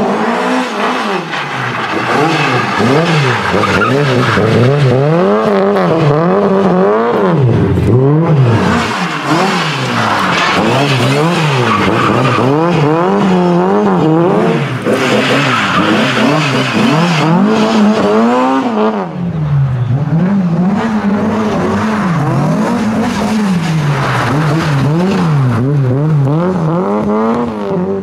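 A race car engine is revving hard. Its pitch climbs and drops every second or two as it accelerates, lifts and shifts through a slalom, with tyres scrabbling and skidding on loose dirt.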